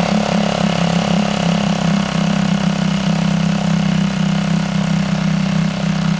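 Yamaha F5 four-stroke single-cylinder outboard motor, warmed up, idling steadily on its second start after a head gasket replacement.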